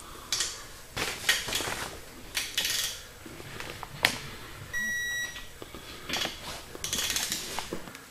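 Snap-on electronic torque wrench ratcheting as main bearing cap bolts are tightened, in several short rasping strokes. About five seconds in it gives one short electronic beep, the buzz that signals the set torque has been reached.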